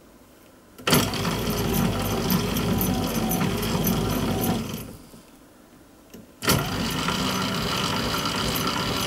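Old lathe's gear-cutting setup cutting helical gear teeth, the carriage fed by its handwheel. There are two runs of steady machine noise with a scatter of high ticks: the first starts about a second in and lasts about four seconds, the second about three seconds. Each starts abruptly and fades out.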